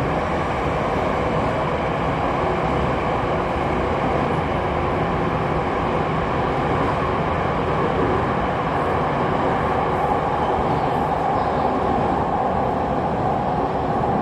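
Jakarta MRT electric train running between stations, heard from inside the car by the doors: a steady rumble and rushing of wheels on rails that holds even throughout.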